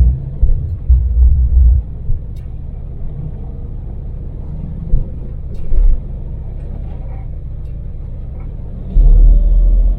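Daewoo Damas mini van's small three-cylinder LPG engine and road noise rumbling steadily while driving. Deep low buffeting swells rise over the rumble, loudest about a second in and again for about a second near the end.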